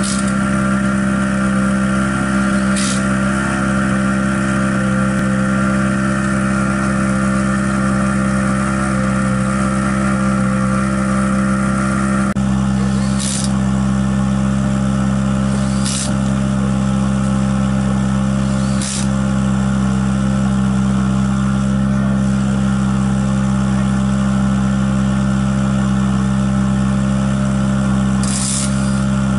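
An engine running at a steady, unchanging speed with a constant drone. Short high hisses break in about five times, several seconds apart.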